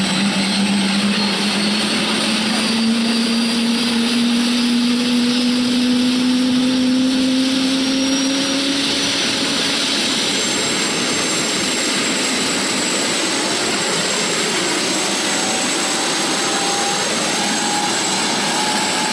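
Eurocopter AS350 B3 helicopter running on the ground with its main rotor turning: a steady rush of rotor and engine noise, with a turbine whine that rises slowly in pitch over the first nine seconds or so and a fainter, higher whine rising again near the end.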